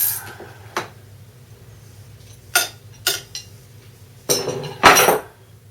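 Metal clinking of a chain riveting tool and wrench as the tool's press screw is backed off after riveting a drive chain link: a few sharp separate clinks, then a longer, louder metallic rattle near the end.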